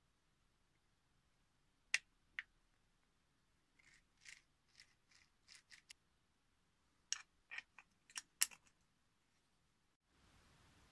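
3D-printed plastic differential parts (bevel gears, axle stubs and ring-gear housing) clicking and scraping as they are handled and fitted together by hand. There are two sharp clicks about two seconds in, a run of softer clicks and scrapes, then a cluster of sharp clicks near the end.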